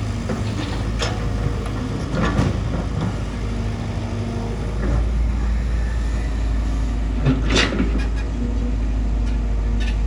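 Bulldozer's diesel engine running steadily, with a few sharp knocks over it; the loudest comes about three-quarters through.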